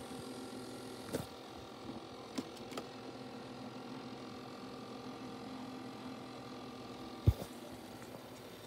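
Steady electrical hum with several faint even tones from running disco lights, with a few light clicks and one sharp knock about seven seconds in.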